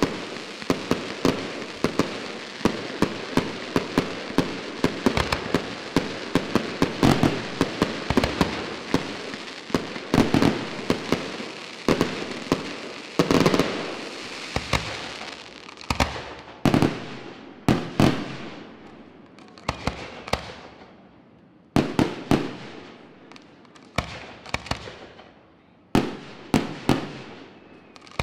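Fireworks display. A dense barrage of rapid bangs and crackling for about the first half, thinning to single shell bursts every second or two in the second half, each with a trailing echo.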